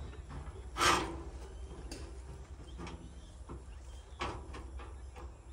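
Rope and tarpaulin scraping and rubbing as men work on a tipped-over loaded trolley, with a louder rasping scrape about a second in and lighter scrapes and knocks near the end. A steady low rumble runs underneath.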